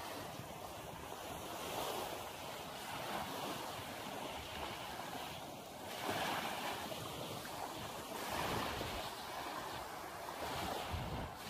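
Small waves breaking and washing up on a sandy shore, swelling and fading every few seconds, with wind rumbling on the microphone.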